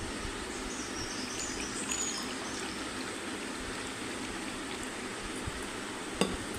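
Pot of herbal decoction (kashayam) boiling on the stove: steady bubbling, with one light knock near the end.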